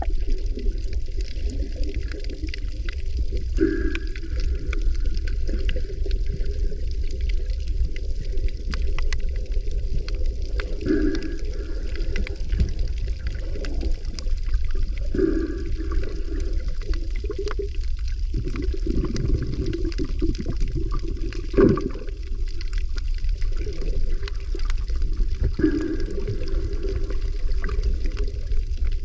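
Water sloshing and gurgling over a steady low rumble, with louder surges every few seconds.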